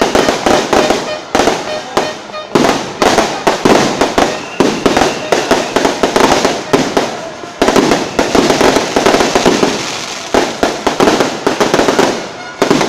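Fireworks going off in rapid, near-continuous volleys of loud bangs and crackles, with a few brief lulls between barrages.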